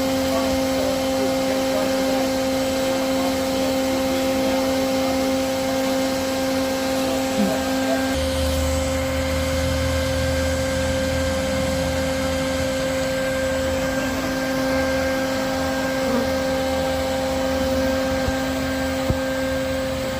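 Vacuum motor running steadily with a constant whining hum, used to suck honeybees out of a hive. A deeper low rumble joins in about eight seconds in.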